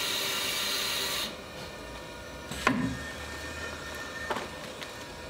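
Ecofill HT1 aseptic bag filler at work: a steady hiss cuts off suddenly about a second in. About a second later comes a sharp clack, then a steady high tone for about a second and a half, ending with a second clack.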